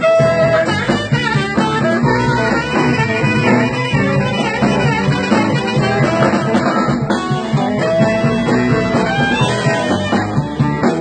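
Blues band playing live: guitar over bass and drums.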